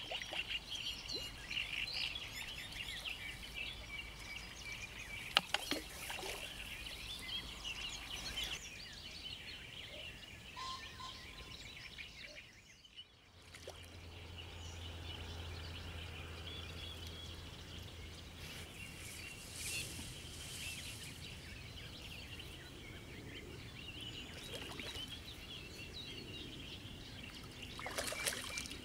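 Birds chirping over a steady outdoor background hum, with a few sharp clicks about five seconds in.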